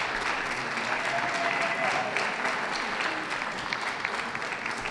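Audience applauding steadily, a dense run of many hand claps.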